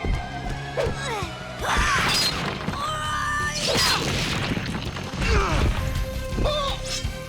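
Action-cartoon background score with crashes and hits from the fight sound effects laid over it.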